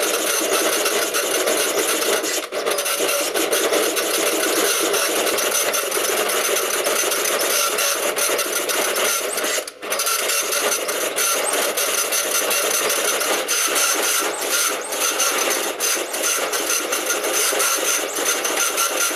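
PSI PP-404 high-speed dot-matrix printer printing continuously in its 'data' font (quoted at 500 characters a second): a loud, dense rasp of rapid print-head strikes. It dips briefly about two seconds in and near the middle.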